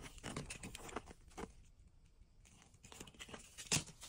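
Paper hang tags and a carry-on suitcase being handled by hand: a run of light rustles, taps and clicks, with one sharper knock a little before the end.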